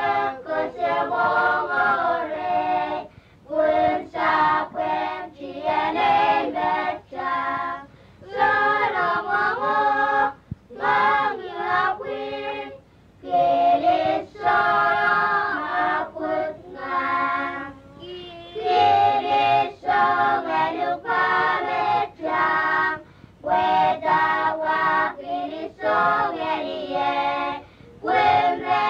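A group of Kuttu islanders singing together unaccompanied, in short phrases separated by brief pauses.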